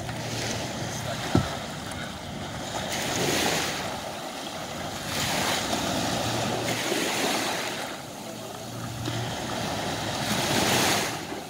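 Small waves breaking and washing on the beach, the surf rising and falling every couple of seconds, with wind on the microphone. A single sharp click about a second and a half in.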